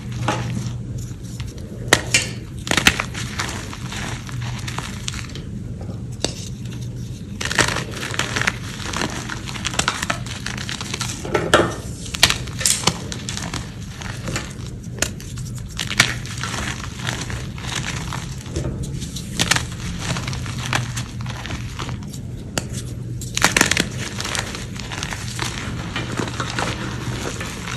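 Hands crushing and crumbling gym chalk, dry chunks and powder breaking up in the fingers: irregular crunches and crumbles. A steady low hum runs underneath.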